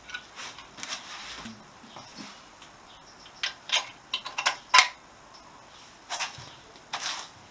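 Scattered metal clicks, taps and short scrapes as a mounting bolt is worked into the rear engine mount of a 1973 Honda CB125S frame. A quick run of sharp clinks comes in the middle, the loudest about five seconds in.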